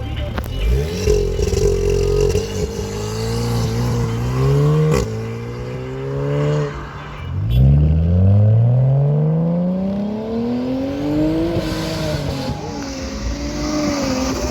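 A car accelerating hard, its engine revs climbing steeply. They drop sharply with a click at a gear change about five seconds in, climb again through the next gear, then fall and waver as it eases off near the end.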